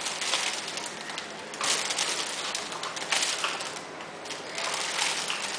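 Thin plastic shopping bag rustling and crinkling in several bursts as two kittens paw at it and wrestle on it.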